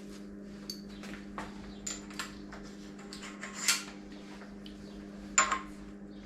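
Metal bike parts and hand tools clinking and clattering during assembly, a series of sharp clinks with the loudest two about two-thirds of the way and near the end, over a steady low hum.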